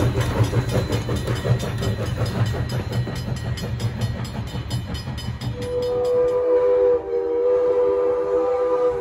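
Steam locomotive pulling a train away with rapid, even exhaust chuffs over a low rumble, then a long steady chime whistle blast of several notes sounding together from just past halfway.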